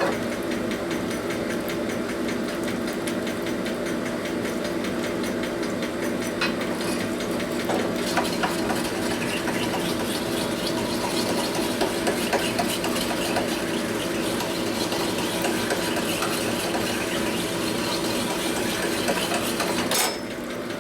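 Hand-held drill spinning a coarse-grit stone hone inside a metal bore, running steadily with light scraping as the stone cuts; it stops near the end.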